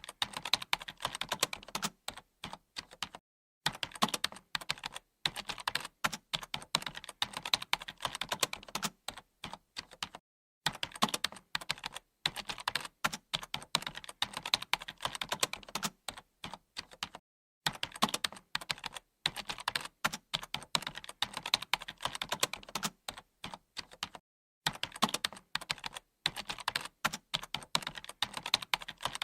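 Fast typing on a computer keyboard: dense runs of key clicks, broken by brief pauses about every seven seconds.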